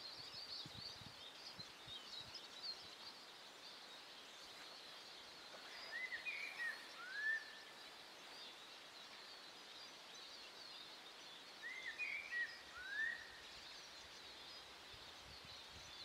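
Wild birds singing: a steady faint high twittering of small birds, with a louder phrase of a few short whistled, gliding notes about six seconds in, repeated about six seconds later.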